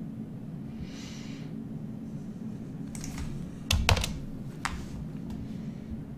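Computer keyboard keystrokes: a short cluster of sharp clicks between about three and five seconds in, the loudest with a dull thud, over a steady low hum.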